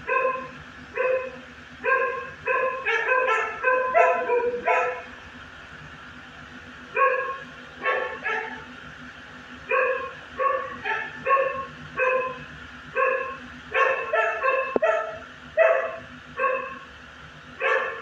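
Dog barking in quick runs of short barks, with a lull of about two seconds before the barking picks up again.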